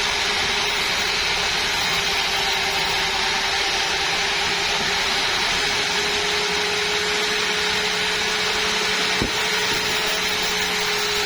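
Sawmill saw running steadily with a constant whine, with one sharp click about nine seconds in.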